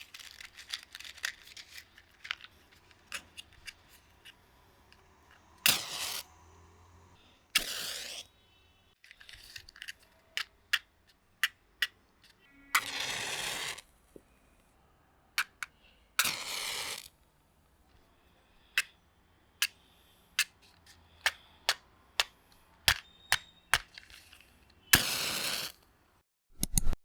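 Matches being struck and lit, five times in all. Each strike is a rasping scrape that runs on into a short flaring hiss, the longest about a second long. Between them come many sharp clicks and taps of the matches and box being handled.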